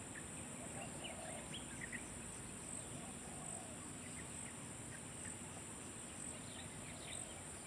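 Night-time insects keeping up a steady high-pitched buzz without a break, with a few short faint chirps scattered over it.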